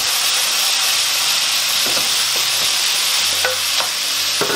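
Minced beef and chopped onion sizzling steadily in a hot frying pan as a wooden spoon stirs them, with a few short knocks of the spoon against the pan.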